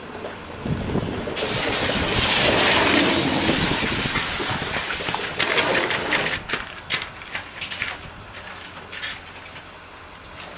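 A luge sled's steel runners hissing and scraping on ice as it slides up the outrun and slows down. The hiss comes in sharply about a second and a half in, is loudest a couple of seconds later and fades over the next few seconds. It is followed by scattered clicks and knocks as the sled comes to a stop.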